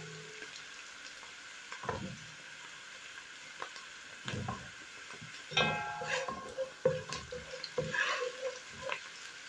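Diced onions sizzling steadily in oil in a non-stick frying pan. A wooden spatula scrapes and stirs against the pan several times, some strokes with a brief squeak.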